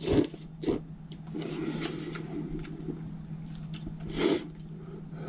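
A person slurping instant ramen noodles from a cup: a few short slurps, with softer eating noises between them, over a steady low hum.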